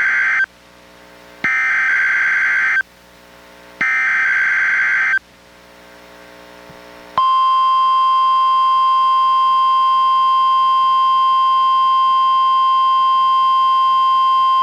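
NOAA Weather Radio SAME digital header, a harsh buzzing data screech: the end of one burst, then two more bursts of about a second and a half each, with short pauses between. About seven seconds in, the 1050 Hz NWR warning alarm tone starts, one steady high tone that holds on. This is the header and alarm of a weekly test, as received on a weather radio.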